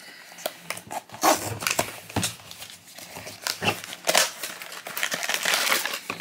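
Handling of a small cardboard blind box: a run of scrapes, taps and clicks as it is picked up and turned in the hands and its top flaps are pulled open.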